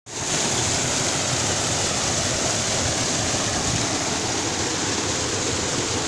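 Steady rushing of water from a waterfall and rocky river, an even, unbroken noise.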